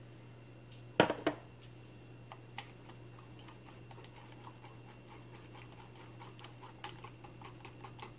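An egg knocked against the rim of a bowl, two sharp cracks about a second in. Then a spoon clicks lightly against the bowl, the clicks coming quicker near the end, as the egg is stirred into mashed cream cheese and sugar. A steady low hum runs underneath.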